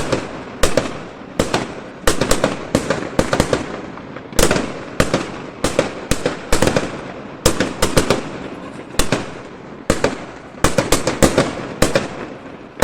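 Fireworks exploding in a dense, irregular string of sharp bangs, about one to three a second, each trailing off in a rumbling echo.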